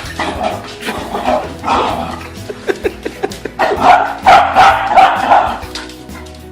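A dog barking in a series of short barks, loudest in a quick run from about three and a half to five and a half seconds in, over background music.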